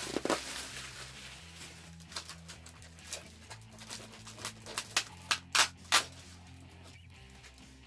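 Paper and plastic packaging crinkling and crackling as a mailed envelope is opened and its contents handled, with a cluster of sharper crackles about five to six seconds in.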